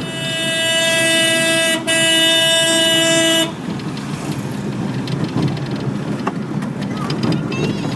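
Vehicle horn sounding close and loud in two long blasts separated by a brief break a little under two seconds in, with a lower second tone joining part of the way through. After that, the engine and road noise of the vehicle moving through traffic.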